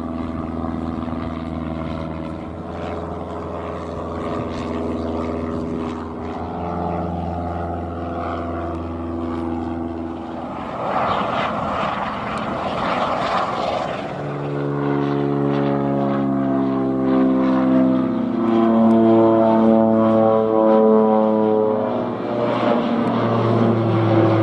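A Piper PA-28-140 Cherokee's piston engine and propeller drone steadily for about the first ten seconds as it flies over. Then comes a few seconds of a helicopter's rotor and turbine noise. Last, a Dash 8 twin-turboprop airliner passes low overhead, louder, its propeller drone falling in pitch.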